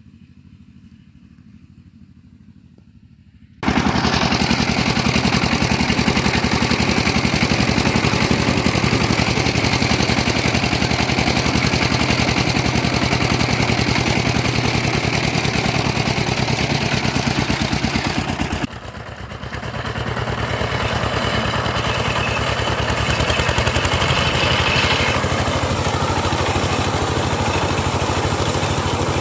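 Engine of a small wheat combine running steadily with a fast, rattling clatter. It cuts in abruptly after a few seconds of faint background and dips sharply for a moment near the middle.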